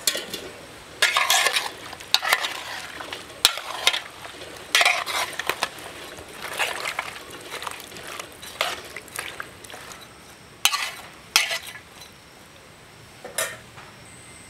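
A hand stirring chopped raw vegetables with water and oil in a large aluminium pot: irregular wet rustling and sloshing, with a few sharper clatters, dying away near the end.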